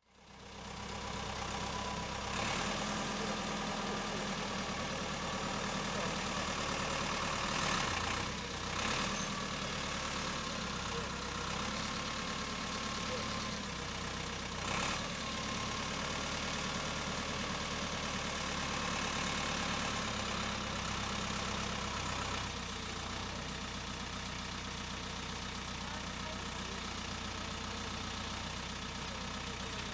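Apollo 85 hp tractor's diesel engine running steadily while its front-end loader digs into a soil pile. A few brief scraping noises come about eight, nine and fifteen seconds in.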